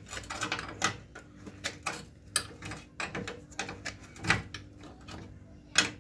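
Irregular metallic clicks and clinks of a 17 mm spanner being fitted and turned on a combi boiler's stuck filling valve, about a dozen in all, the loudest near the end.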